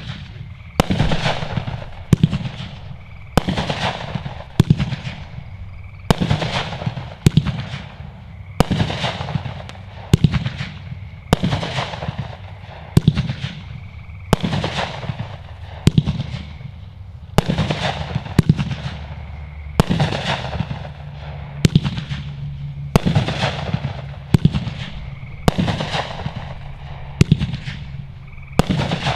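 Realtree 'It's A Doe' 500-gram, 26-shot firework cake firing its shots in steady succession, a sharp bang about every second, each trailing off in a short echo.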